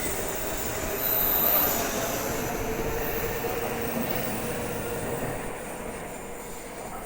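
An eight-car N700-series Shinkansen train pulling into the platform and braking, its wheels and brakes whining as it slows, the noise fading gradually as it comes to a stop.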